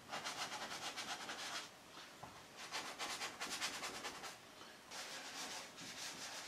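Hand sanding primer with wet and dry paper on a rubbing block: quick back-and-forth rasping strokes in three spells with short pauses between, rubbing down the high edges of primered body repairs.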